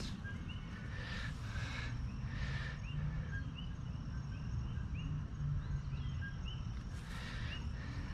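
Evening outdoor ambience: a steady high insect trill, with short rising chirps repeating about once a second and a few brief soft rustles.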